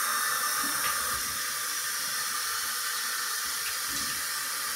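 Water tap running steadily into a bathroom sink while the face is wetted for a shave.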